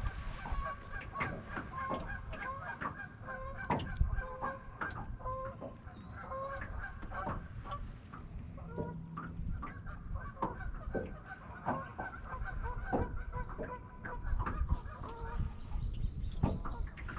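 Geese honking over and over, a steady run of short calls throughout. There are scattered clicks and knocks, and a brief high trill twice.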